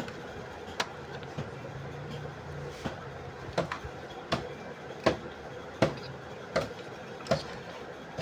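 Sharp knocks repeating evenly about every three quarters of a second, starting about three and a half seconds in, over a steady low hum.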